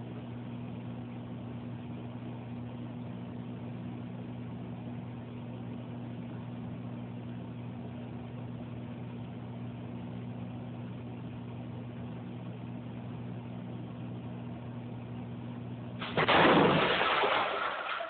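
Microwave oven humming steadily as it runs, then about 16 s in a sudden loud bang as it explodes, followed by a noisy rush that dies away over about two seconds.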